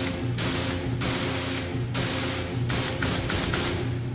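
Canpump 1500 psi, 2.2 gpm electric pressure washer spraying its jet onto a concrete floor: a loud, dense hiss of water that swells and eases several times, with the pump's steady hum underneath.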